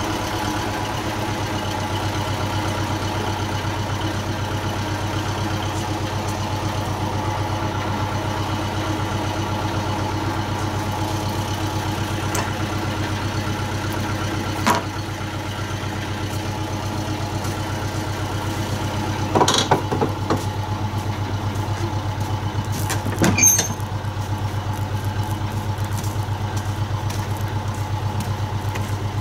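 T-25 tractor's two-cylinder air-cooled diesel idling steadily, running evenly on a freshly changed fine fuel filter. A few short knocks sound over it in the second half.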